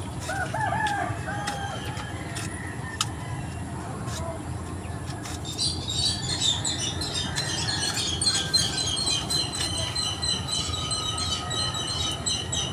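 Many small birds chirping rapidly and high-pitched, starting about five seconds in, over a steady low rumble, with a few sharp clicks in the first half.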